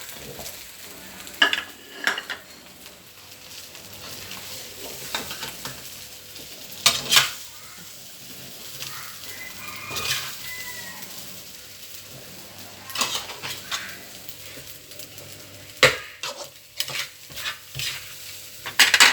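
Spoons, pots and dishes clinking and scraping in scattered sharp clatters over a steady background hiss, as home-made fried rice is stirred and served.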